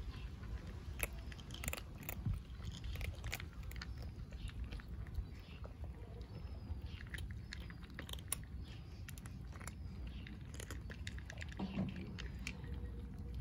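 Stray cats and kittens crunching dry kibble from plates: a dense, uneven run of small crisp crunches and clicks.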